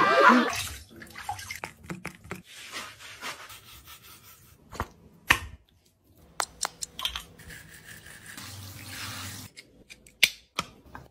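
Water and scrubbing as a dog is bathed in a shower, with scattered sharp clicks and knocks.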